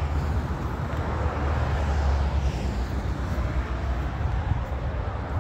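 Steady rumble of highway traffic, with wind buffeting the microphone.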